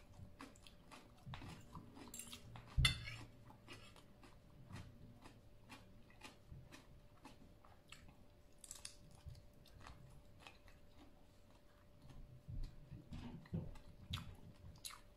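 Close-up chewing of a mouthful of Thai spicy salad with instant noodles: soft, wet mouth clicks and smacks, with one louder click nearly three seconds in. A faint steady hum sits underneath.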